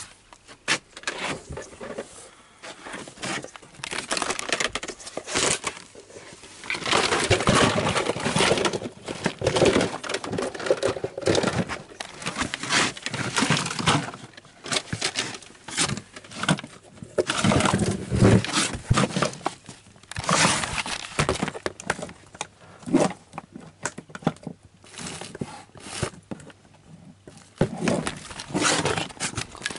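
Hands rummaging through a box of plastic toys and empty plastic bottles: items clattering, scraping and crinkling against each other, with frequent sharp knocks.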